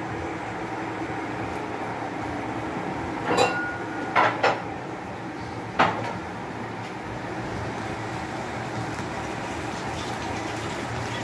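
Steady background noise in a kitchen, with four sharp clinks of kitchenware, three close together about three to four and a half seconds in and one more near six seconds, the first leaving a short ring.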